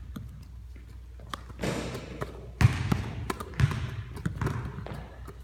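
Basketballs being handled during a leg-wrap drill: hands slapping and swishing the ball around the legs, with scattered knocks and a few heavier thuds of the ball, the loudest about two and a half and three and a half seconds in.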